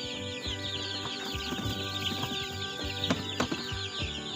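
A brooder full of Dominant CZ D853 chicks peeping without pause, many short falling cheeps overlapping one another, with a few soft knocks among them.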